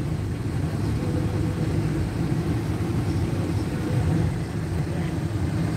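Steady low rumble of a car's engine and tyres on the road, heard from inside the cabin while driving at speed.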